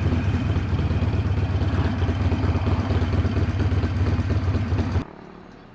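Harley-Davidson Iron 883's air-cooled 883 cc V-twin engine running steadily, with road noise over it. It cuts off suddenly about five seconds in, leaving a much quieter background.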